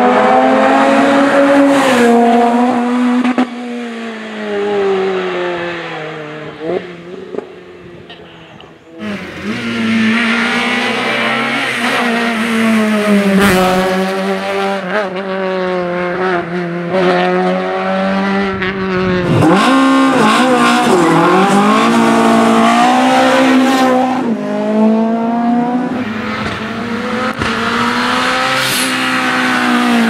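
Race car engines driven hard, one competition car after another on a hillclimb road, each pulling up through the revs and dropping back at gear changes. The engine note fades away between about 4 and 9 seconds before the next car comes in loud.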